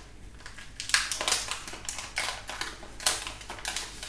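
Foil wrapper of a Pokémon trading-card booster pack being torn open and crinkled by hand, in several short crackling bursts.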